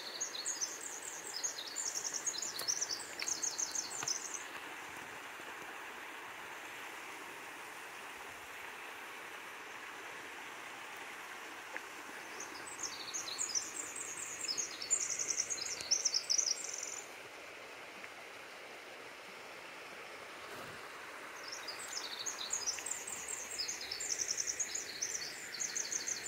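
A songbird singing three long songs of rapid, high-pitched trilled notes, each lasting about four seconds, spaced several seconds apart, over a steady hiss of background noise.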